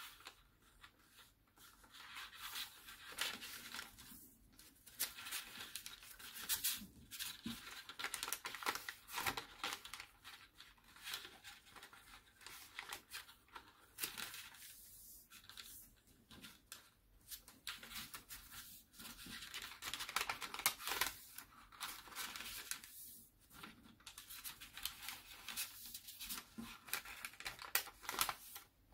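A square sheet of origami paper being folded and creased by hand as its folds are reversed: irregular crackling and rustling of stiff paper, in short bursts with brief pauses.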